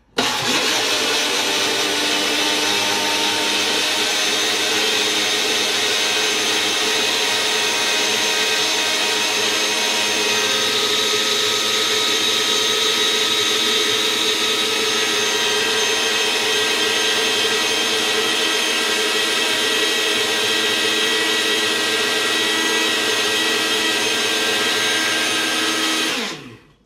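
Personal blender with its bottle on the motor base, running loud and steady as it blends pineapple chunks, pineapple juice and milk. It starts abruptly and winds down with a falling pitch near the end.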